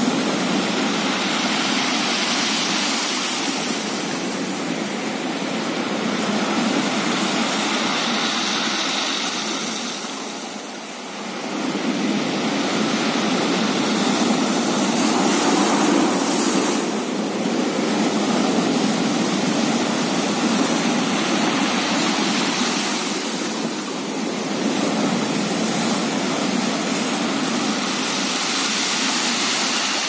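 Sea waves surging and breaking into a narrow rocky inlet: a continuous rush of surf and foam that swells and ebbs in slow washes, with a brief lull about a third of the way through.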